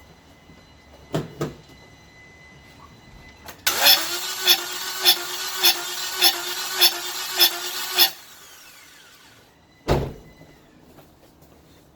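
2009 Toyota Corolla engine cranked by the starter for about four seconds, with a regular pulse under a steady whine, then cutting off abruptly without the engine running on: the crank-no-start fault. Two sharp clicks come before it, and a single thump follows.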